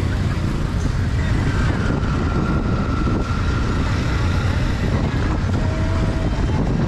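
Busy city street ambience, with a steady low rumble of traffic running throughout.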